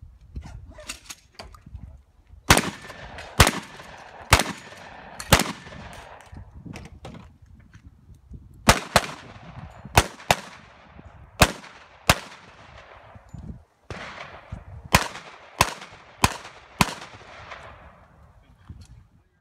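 Gunshots from a competitor's firearm on a 3-gun stage, about fourteen in all. They come in three strings of four to six shots, roughly half a second to a second apart, with pauses of a few seconds between strings. Each shot is a sharp crack with a short echoing tail.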